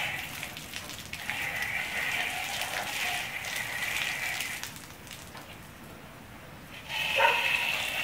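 Alum solution being poured into the cells of a 12-volt lead-acid battery: liquid trickling and splashing for about four seconds, a short pause, then another pour starting near the end.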